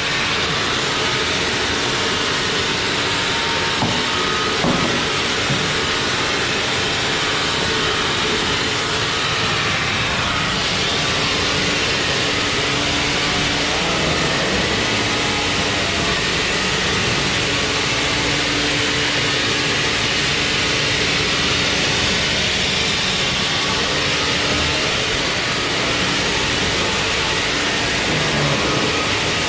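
Sawmill machinery running loud and steady: a dense mechanical noise with a low, steady hum beneath it and a couple of light knocks about four to five seconds in.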